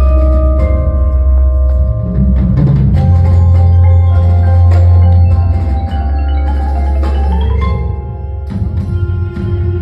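Indoor percussion ensemble playing: marimbas and other mallet keyboards sounding held notes and struck accents over deep, sustained bass tones. The bass dips for a moment about six seconds in and again near the end.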